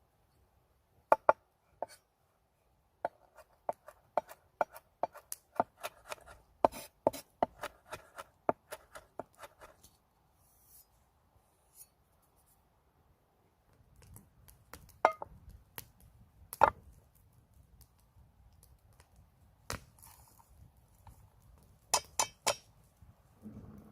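A knife chopping on a cutting board: sharp knocks, a quick run of about two a second for several seconds, then a few scattered strokes and a close pair near the end.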